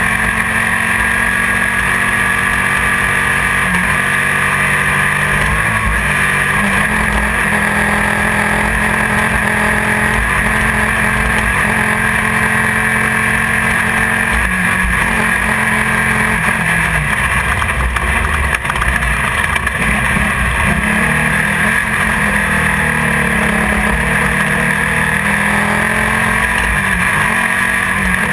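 Off-road race car's engine heard from inside the car, running hard, its pitch rising and falling in steps as the car shifts and changes speed.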